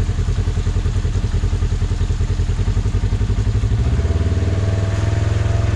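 Polaris RZR XP1000's twin-cylinder engine running at low revs with an even pulsing beat, then picking up revs about four seconds in as the machine pulls forward over rock.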